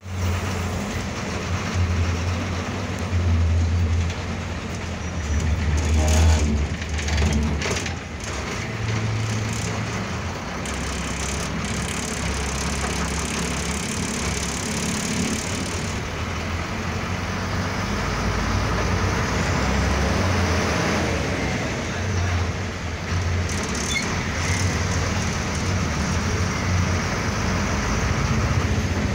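Bus engine running and road noise heard from inside the moving bus's cabin, the low engine note swelling and easing as it drives, with a few sharp knocks or rattles about six to eight seconds in.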